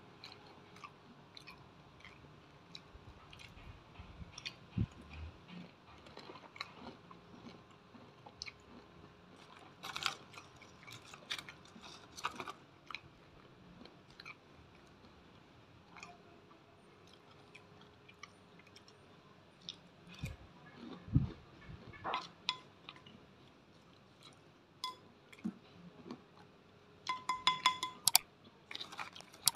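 Close-up chewing and crunching of crispy fried batagor, fish dumplings in fried wonton skin, with bites and crunches coming irregularly between pauses. A short ringing chime sounds near the end.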